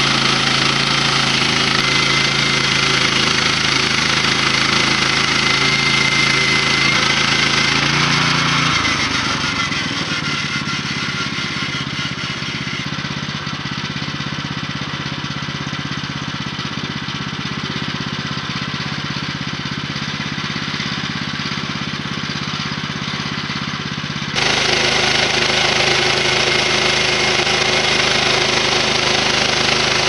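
Portable sawmill's engine running steadily under load while cutting a log. About nine seconds in it drops in pitch and level to a quieter steady run, and near the end it is abruptly back at the louder cutting sound.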